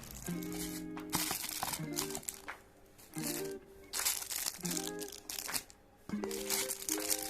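Background music, short soft chords repeating over and over, with plastic packaging crinkling in several bursts as accessories are handled.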